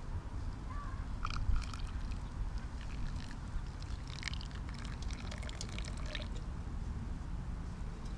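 Water poured from a metal camping pot onto coffee grounds in a stainless steel mesh pour-over filter, trickling and dripping into the mug below, mostly from about a second in until past the middle. A steady low rumble runs underneath.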